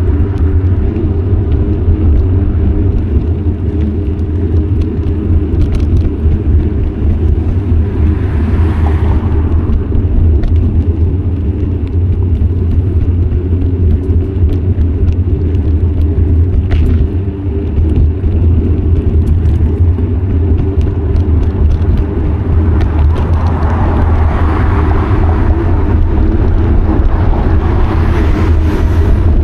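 Steady low wind rumble on an action camera's microphone as it moves with a bicycle. Road vehicles pass twice, swelling and fading about eight seconds in and again near the end.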